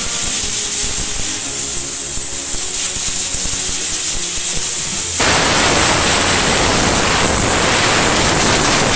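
Faint background music, then about five seconds in a compressed-air blow gun starts suddenly and blows a loud, steady blast of air, blowing the dust out of a car's cabin air filter.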